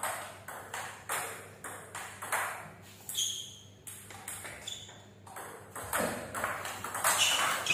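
Table tennis rally: the ball clicks off the paddles and the table in a quick, even series, about three hits a second, getting louder near the end.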